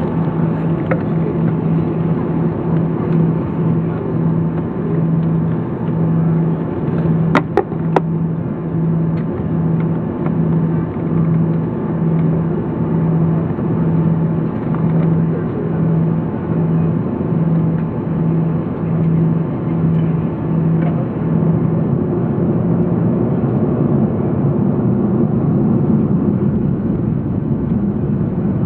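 Cabin noise of an Airbus A340-300 rolling on the ground: a steady rumble from its four CFM56 engines and the airframe, with a low pulse about once a second. The pulse stops about three quarters of the way through and the engine noise swells. There are two sharp clicks in the cabin about seven and eight seconds in.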